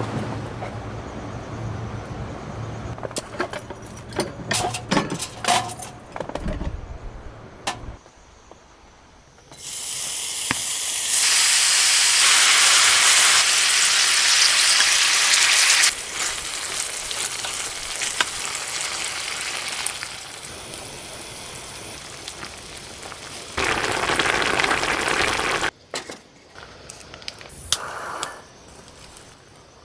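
Food sizzling loudly in a hot pan: a long burst about ten seconds in that lasts some six seconds, softer sizzling after it, and a second short loud burst near the end. Before it come scattered clicks and clatter of handling.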